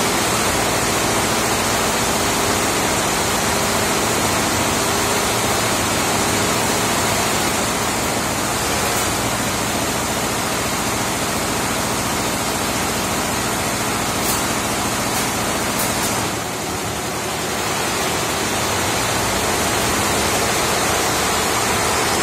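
A 68-head, 6-colour multi-needle embroidery machine running at about 900 rpm: dozens of heads stitching at once, blending into a dense, steady mechanical noise.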